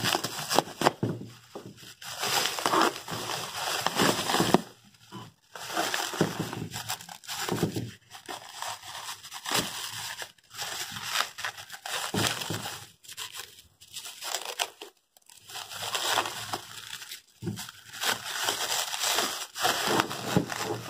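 Clear plastic wrapping crinkling and rustling as it is torn and pulled off blue-painted steel machine parts. It comes in irregular bursts of a second or two with short pauses between.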